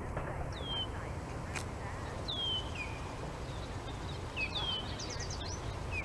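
A bird's short, high whistled calls, each sliding down in pitch, repeated every second or so, with a quick run of higher notes about five seconds in. A low, steady background rumble lies underneath.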